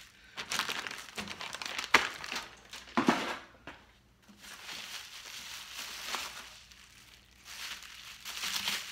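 Plastic bubble wrap crinkling and rustling as it is unfolded from around a circuit board, with two sharp crackles about two and three seconds in.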